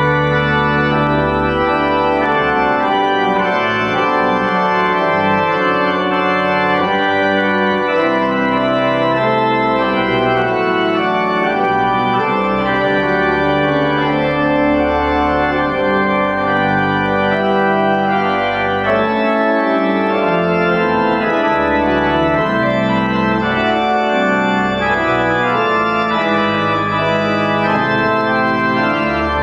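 Church pipe organ playing a piece: held chords, steady in loudness, over a low bass line that moves from note to note every second or two.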